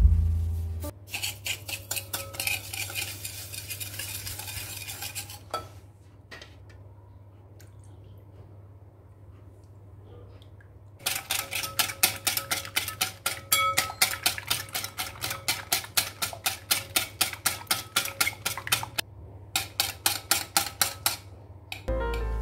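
Wire balloon whisk beating egg and sugar in a bowl by hand: fast, rhythmic clicking and scraping of the metal wires against the bowl, stopping for a few seconds midway and then resuming at about three to four strokes a second. The whisking is meant to dissolve the sugar fully into the egg.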